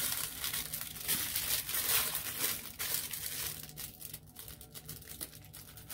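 Clear plastic packaging crinkling as it is handled and pulled open around an acrylic piece. Dense rustling for the first half, thinning to scattered crackles.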